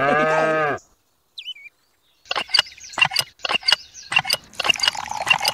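A short wavering voice-like cry at the start. Then, after a pause, the handle of a miniature hand pump is worked in quick clicking strokes, two or three a second, and from about four and a half seconds in water splashes steadily from its spout into a small metal bucket.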